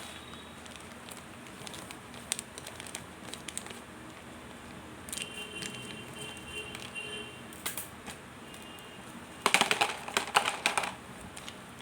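Plastic packaging of mothballs being handled, crinkling with scattered small clicks and a brief squeak in the middle, then a louder burst of dense crackling and clicking near the end.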